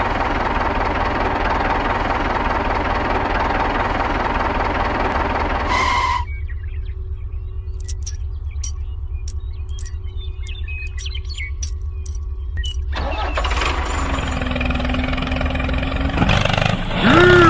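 Engine running steadily with a constant low rumble. About six seconds in, the sound thins to the rumble with a faint steady tone and scattered light clicks. It fills out again about thirteen seconds in.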